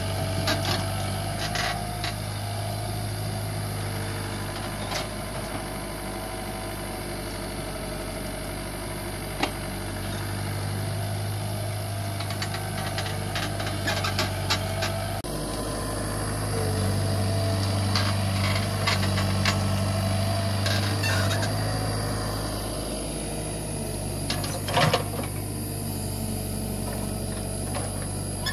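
Komatsu PC75 mini excavator's diesel engine running steadily, swelling and easing as the machine works its boom and bucket. Through it come short clicks and knocks from the bucket and tracks working in dirt, the loudest a sharp double knock a few seconds before the end.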